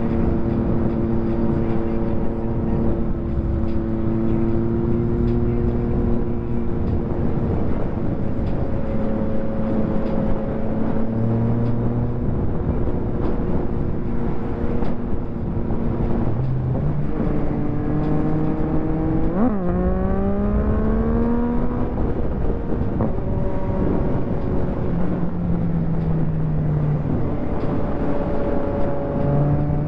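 Yamaha MT-09 SP inline-three engine through a full Akrapovic race exhaust, heard from the rider's seat. It mostly holds steady, with pitch steps from gear changes. About two-thirds of the way in there is a short sharp rev, and the engine climbs again under acceleration near the end. Wind noise runs underneath.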